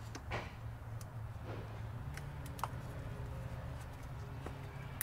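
Faint, scattered small clicks from a plastic zip tie and the shock's rubber boot being handled as the tie is fitted around the boot, over a steady low hum.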